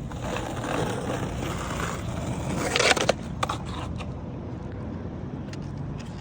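Skateboard wheels rolling on wet pavement, growing louder, then a loud clatter of the board's deck hitting the ground about three seconds in, followed by a few lighter knocks and quieter rolling.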